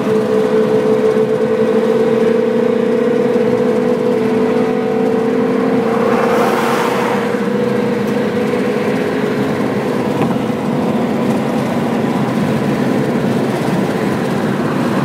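A car's engine and road noise at highway speed, heard from inside the cabin: a steady engine hum whose held tone slowly drops in pitch, and a rush of passing traffic about six to seven seconds in.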